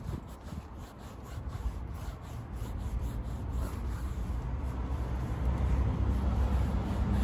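Foam tyre-dressing applicator rubbing conditioner onto the rubber sidewall of a Continental off-road tyre, with short scrubbing strokes early on. A low rumble builds up through the second half.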